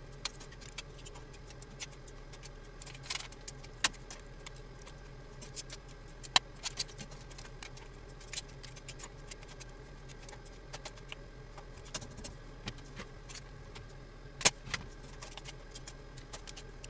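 Broth simmering in a paella pan, with scattered sharp metal clicks of tongs against the pan as the cooked seafood is lifted out, over a steady low hum.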